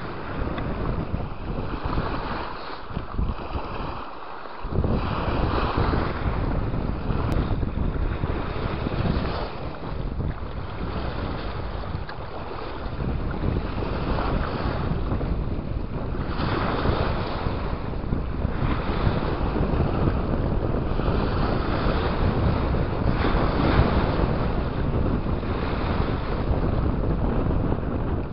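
Heavy wind noise on the microphone, rising and falling in gusts, over the wash of waves on choppy lake water.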